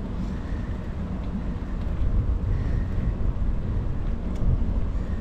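Steady low wind rumble on the microphone of a push bike being ridden along a paved road.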